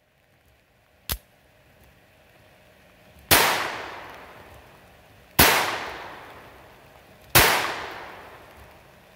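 Three shots from a Phoenix Arms HP22A .22 LR pistol fired slowly, about two seconds apart, each with a long echoing tail. About a second before the first shot there is a single sharp, quieter click.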